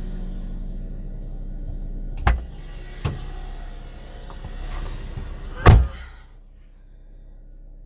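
A car's steady low running hum with two heavy thumps, about two and five and a half seconds in, and a lighter knock between them. After the second thump the hum falls away and it stays quieter.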